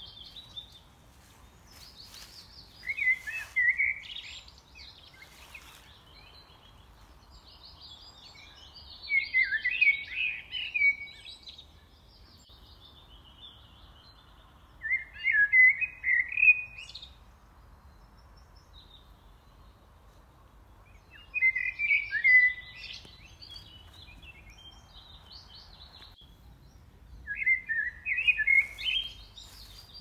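A songbird singing short, chattering phrases of one to two seconds, five times, about six seconds apart, over faint steady background noise.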